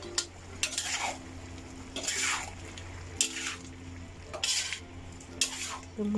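A utensil stirring and scraping through a pan of beef and white radish stew, in several separate strokes about a second apart, mixing in the powdered stock.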